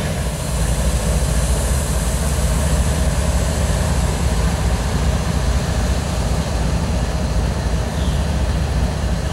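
GE ES44AC diesel-electric locomotives, each with a V16 GEVO prime mover, running past at close range; their engines make a steady, low drone.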